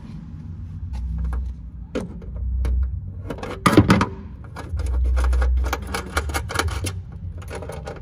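Light metallic clicks and clinks from a steel mounting bracket and bolt being handled and fitted by hand, with one louder clatter about four seconds in and a quick run of clicks near the end, over patches of low rumbling.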